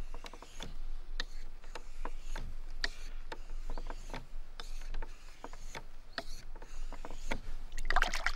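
Knife blade stroked across a wet 1200-grit Japanese water stone, short scraping strokes about two a second. Near the end, water splashes as the stone is dipped in its soaking tray.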